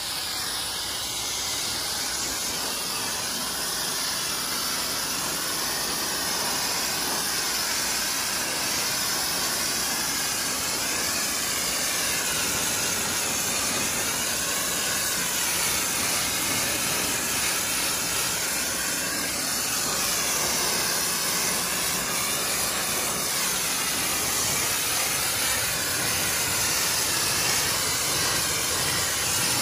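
Pressure washer spraying a continuous jet of water onto concrete to rinse it: a steady hiss whose tone wavers slowly as the spray moves.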